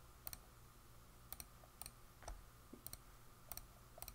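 A series of faint computer mouse clicks, unevenly spaced, several heard as quick double ticks.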